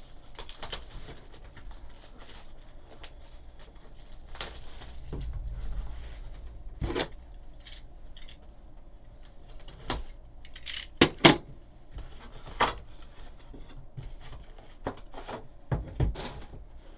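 A sealed cardboard trading-card hobby box being unwrapped and opened by hand: shrink wrap rustling and tearing and cardboard rubbing, with several sharp clicks and knocks, the loudest about eleven seconds in.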